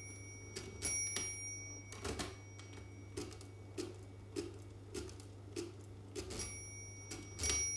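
Facit NTK mechanical calculator being hand-cranked through a division, its gears and crank clunking about once or twice a second. Its bell rings at the start and again about six and a half seconds in, the signal that cranking backwards has taken the register past its limit, so it is time to turn forward once and move to the next digit.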